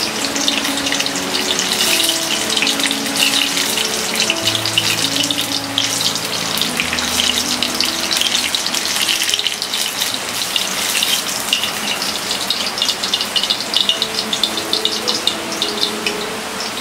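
Paneer pakoras deep-frying in a kadhai of hot oil: a steady, dense sizzle and crackle of bubbling oil around the battered pieces.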